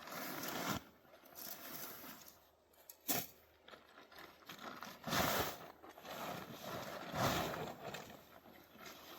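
Irregular rustling and scraping handling noises in a few separate swells, with one sharp knock about three seconds in.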